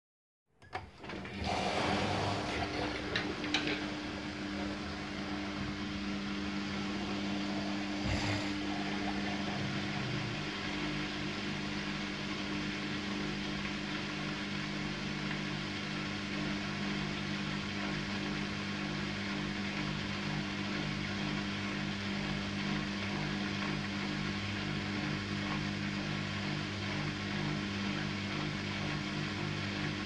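Siemens Siwamat IQ 716 front-loading washing machine running with a steady hum that sets in about half a second in, with a few faint clicks in the first several seconds.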